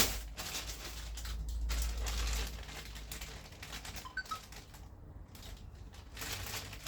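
Unpacking handling noise: a sharp knock at the start, then light clicks, taps and rustling of packaging as items are taken out of the box and set down.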